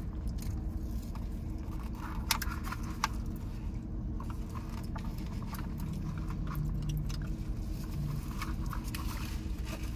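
Steady low hum inside a car with its engine running, with scattered light clicks and rattles over it.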